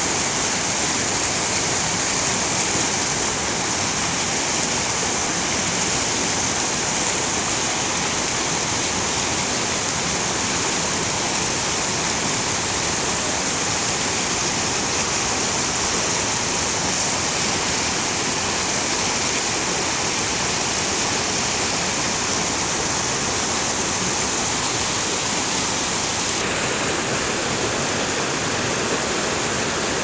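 Mountain river rushing over boulders in shallow rapids: a steady, even sound of fast water, its tone shifting slightly about 26 seconds in.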